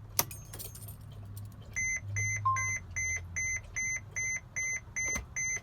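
A click, then the 2017 Mercedes-Benz Sprinter's warning chime beeping rapidly and evenly, about two or three beeps a second, over a low steady hum. No starter cranking is heard: the engine does not turn over.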